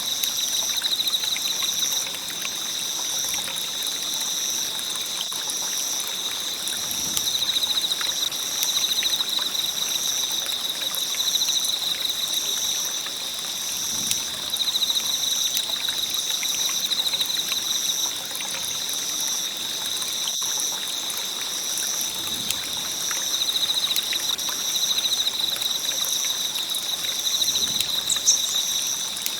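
Wood bonfire crackling, with scattered small pops over a steady hiss. A steady high trill and a second high tone pulsing about once a second run behind it.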